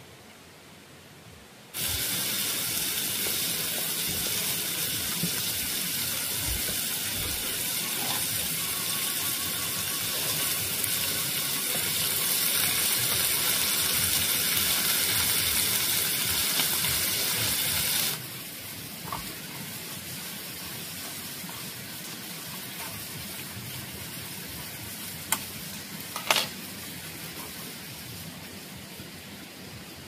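Running water: a steady rushing hiss that starts suddenly about two seconds in and cuts off suddenly at around eighteen seconds. A quieter hiss follows, with two sharp clicks near the end.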